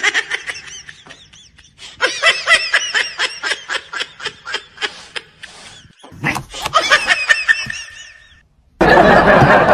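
A person laughing in quick, high-pitched bursts, in several bouts with short breaks. Near the end a loud, dense rushing noise cuts in abruptly.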